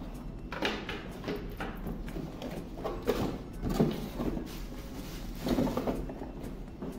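Handling noise from a plastic power adapter and its splitter cables being picked up, turned over and set down on a wooden table: irregular rustles, scrapes and knocks.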